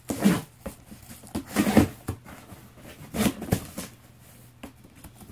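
Cardboard shipping box being gripped and shifted: three short bursts of cardboard scraping and bumping, about a second and a half apart.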